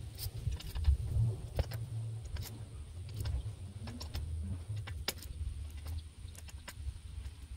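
Scattered small metal clicks and clinks of hand tools and engine parts being handled and fitted during reassembly of a Briggs & Stratton mower engine, over a low rumble.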